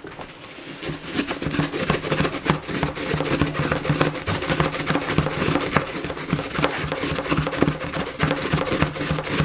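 A daikon radish being grated by hand: fast, continuous rasping strokes across the grater, with a low steady buzz beneath them.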